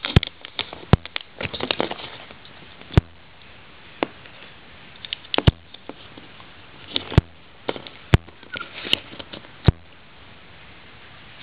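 Plastic Lego bricks clicking as they are handled and pressed onto a small brick model: about eight sharp clicks with light rattling and rubbing of fingers on plastic between them, stopping near the end.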